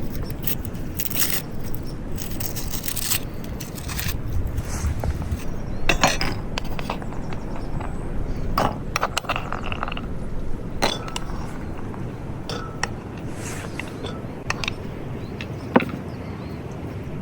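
Irregular clinks, knocks and scrapes of cooking utensils and cookware being handled, a few of the clinks ringing briefly, over a steady low background rumble.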